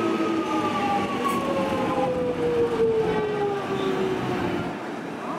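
Melbourne Metro electric suburban train running past, with rail noise and a whine from its traction motors that falls slowly in pitch and fades near the end.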